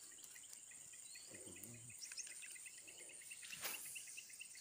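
Insects calling from the marsh vegetation: a steady high-pitched drone with an even series of short chirps running through it. A single faint knock comes near the end.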